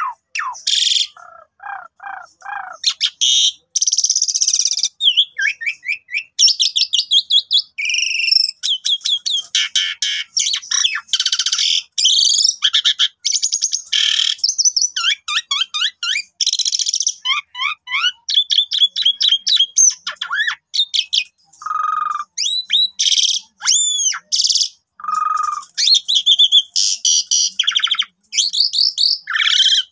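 Asian pied starling (jalak suren) singing a long, varied song: rapid chattering trills and rattles mixed with whistled notes, phrase after phrase with only short pauses.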